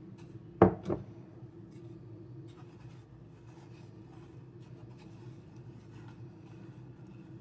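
Two sharp knocks close together, just under a second in, then faint clicks and rubbing as hands wrap sausage meat around a boiled egg, over a steady low hum.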